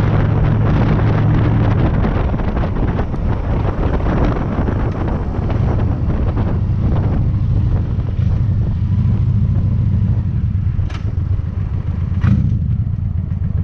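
Honda Shadow V-twin cruiser engine running steadily on the move, with wind noise across the microphone that eases about halfway through. Two short sharp clicks near the end.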